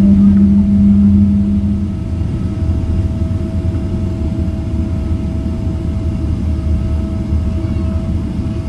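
Cabin noise of a large jet airliner rolling out on the runway just after landing: a steady low rumble from the engines and wheels with a constant whine. A loud low hum stops about two seconds in and the noise eases a little.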